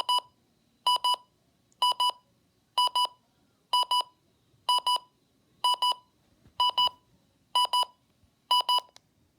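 Alarm of a Midland HH handheld weather radio going off: groups of about four rapid high-pitched beeps, repeating about once a second, then stopping near the end.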